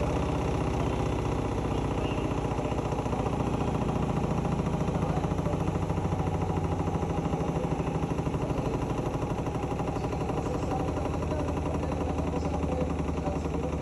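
Hotpoint-Ariston Aqualtis washing machine running, a steady mechanical drone with a fast, even pulsing.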